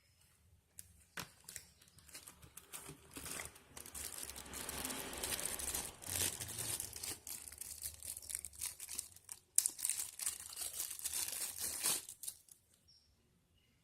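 Plastic packaging wrap being handled and crinkled: a dense rustling with small clicks, starting about a second in, pausing briefly about nine and a half seconds in, and stopping near the end.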